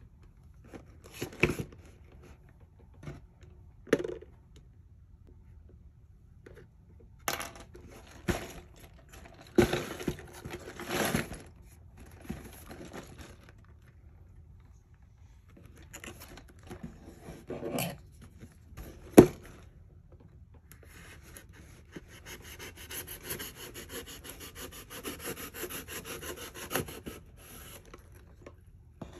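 A cardboard Lego set box handled on a wooden table: scattered knocks and taps as it is set down and turned, with short scrapes of hands and cardboard. One sharp knock a little past halfway is the loudest, and a stretch of steady rubbing on the box runs from about two-thirds in until near the end.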